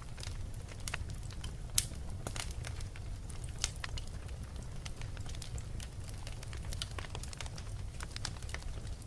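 Wood fire burning in a fireplace: a steady low rumble of flame with irregular crackles and sharp pops, the loudest pop about two seconds in.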